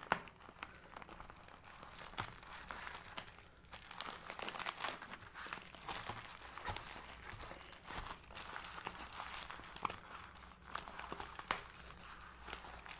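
Plastic parcel wrapping and bubble wrap crinkling and tearing, with irregular crackles, as the taped package is slit with a utility knife and pulled open by hand.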